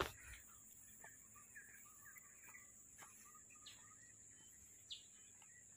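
Near-silent rural ambience with a few faint, short bird chirps scattered through it and a click at the very start.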